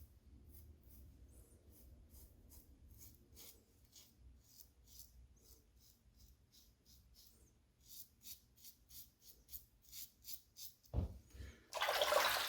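Double-edge safety razor strokes scraping through stubble, short scrapes about two or three a second, louder in the last few seconds. Near the end, a knock and then a brief loud rushing noise.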